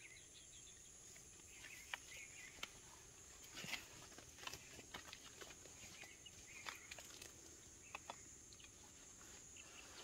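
Faint, scattered sharp clicks of red-breasted parakeets pecking and cracking sunflower seeds with their beaks, about one every second, over a steady high insect drone.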